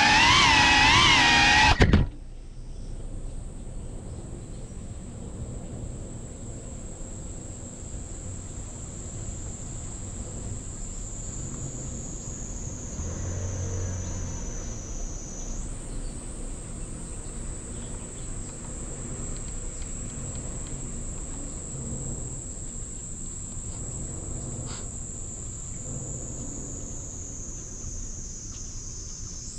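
Music cuts off about two seconds in, leaving a steady high-pitched insect chorus in the trees, its pitch sliding slowly down, jumping back up about halfway through, then sliding down again, over a faint low rumble.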